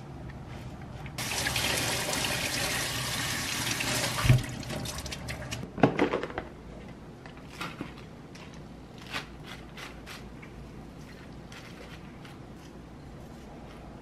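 Kitchen sink tap running for about three seconds and stopping with a thump. About a second and a half later comes a short cluster of sharp clicks, then a few light knocks.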